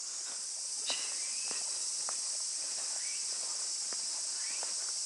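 Cicadas droning steadily in a dense, high-pitched chorus. A few light clicks and several short rising chirps come over the top every second or so.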